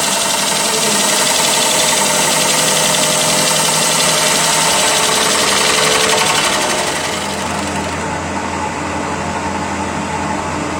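CNC wood lathe turning a large wooden bowl: steady machine noise with a bright hiss that drops away about seven seconds in, leaving a quieter, lower running sound with a steady hum.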